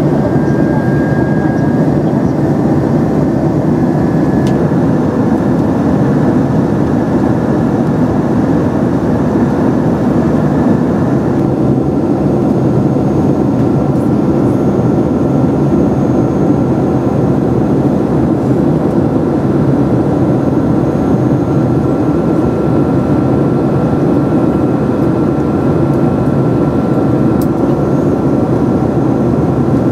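Steady in-flight cabin noise of a Boeing 767-300ER heard from a window seat beside the wing: the even rush of the twin turbofan engines and airflow. A faint high tone in the noise steps slightly lower in pitch about a third of the way through.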